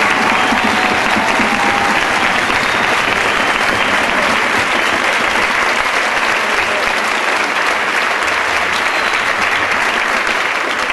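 Audience applauding steadily, dense even clapping that eases slightly near the end.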